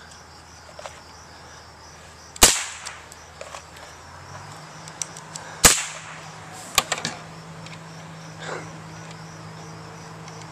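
Scoped semi-automatic rifle fired twice, two sharp cracks about three seconds apart, followed about a second later by a third, slightly weaker crack.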